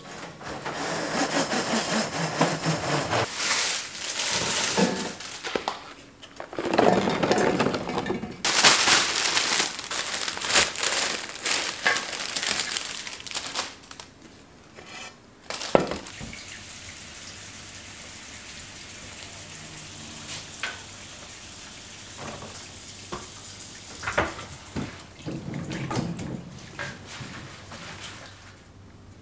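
Water from a kitchen tap running into a sink while leafy greens are rinsed and swished by hand in a bowl, with occasional knocks of dishes. The water is loudest in the first half and quieter and steadier after that.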